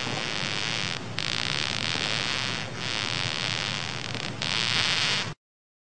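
Ant sound effect: a dense, steady hiss with a faint high whine through it, dipping briefly three times, then cutting off abruptly near the end.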